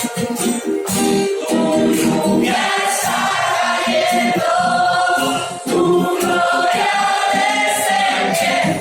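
Worship song with several voices singing together over an instrumental backing.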